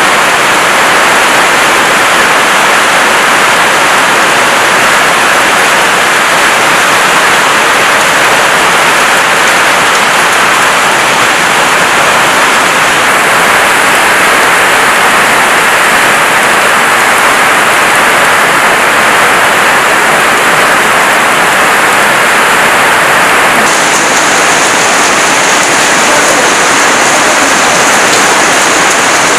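Torrential rain pouring down steadily, a loud, even hiss of heavy rain on the ground and surfaces. Near the end its high hiss changes abruptly.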